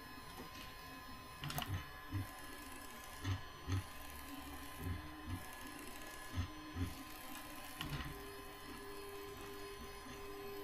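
Bambu Lab A1 Mini 3D printer printing PETG, its motors driving the print head and bed. Short low pulses of movement come in pairs about every second and a half, then give way about eight seconds in to a steady motor whine. A faint steady high tone runs underneath throughout.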